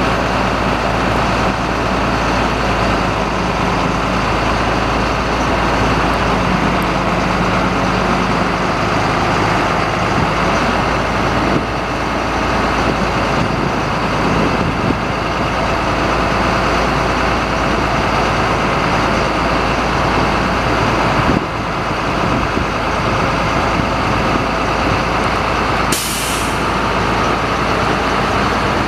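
Caterpillar 3116 6.6L inline-six turbo diesel of a bucket truck running steadily at idle. About 26 seconds in, a short burst of air hisses from the air brake system.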